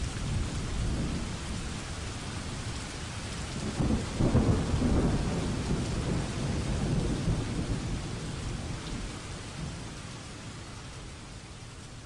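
Rain falling steadily, with a long roll of thunder that swells about four seconds in and slowly fades away.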